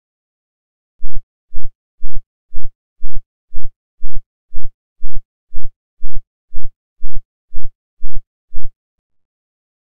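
Pulsar sonification: short, low synthesized pulses, about two a second, starting about a second in and stopping near the end. Each pulse is a radio beam of a simulated double-beam pulsar sweeping past the observer, two pulses to each rotation.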